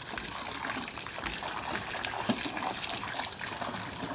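A thin stream of water from a running hose splashing steadily into the harbour water.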